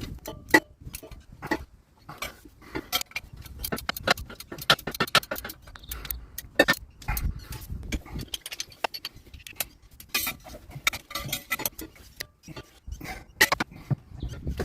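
Ratchet wrench clicking in quick irregular runs while bolts on a steel diff guard are tightened, with light metal clinks of tools and hardware between the runs.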